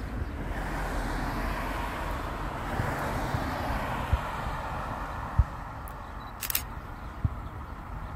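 A car passing on the road beside the tracks, its tyre and road noise swelling and then slowly fading, with a few sharp low thumps in the middle of the passing.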